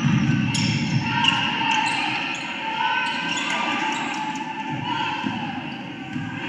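Sounds of a basketball game in a gym: a ball bouncing on the hardwood court over a steady crowd murmur, with a cluster of short, sharp, high sounds in the first couple of seconds.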